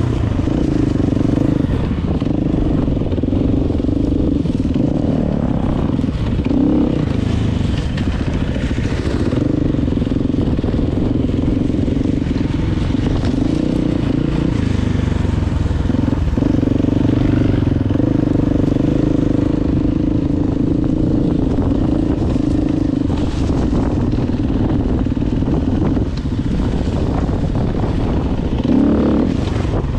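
Motorcycle engine running steadily under way. Its note holds even with a few brief dips, two near the middle and two near the end.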